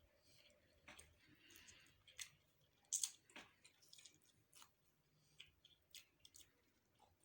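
A person chewing food close to the microphone: scattered sharp mouth clicks and small crunches among soft, wet squishing sounds, the sharpest click about three seconds in.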